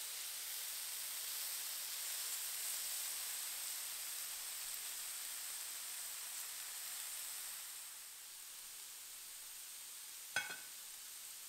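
Chicken pieces and bacon-wrapped sausages sizzling steadily on the Silvercrest PD-8919 raclette grill's ribbed plate; the sizzle fades about eight seconds in. Near the end comes one sharp clink, with a brief ring, of cookware against the ceramic plate.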